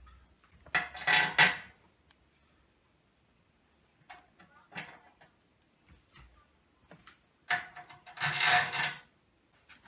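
Metal clattering and scraping as screws are handled against the sheet-metal housing of a fluorescent light fixture, in two bursts of about a second, one near the start and one near the end, with a few light clicks between.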